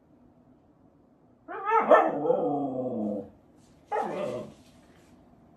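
Siberian husky "talking": one long wavering call of about two seconds with a bending pitch, then a short second call about a second later.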